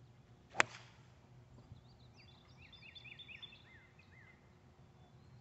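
A golf club strikes the ball off the tee with a single sharp crack about half a second in. From about two seconds in, a bird sings a quick series of short chirped notes.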